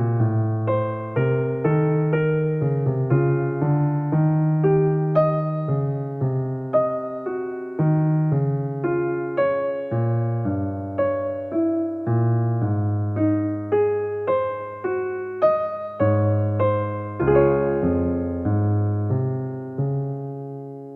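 Soft piano background music: steady, unhurried chords over low bass notes, ending on a chord left to ring out and fade.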